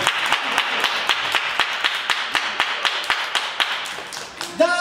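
A group of people clapping, many hands at once, dying down shortly before the end.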